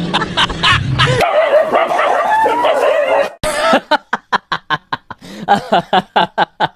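Dog barking in a fast run of short, yapping barks over the second half, after a wavering whine-like sound.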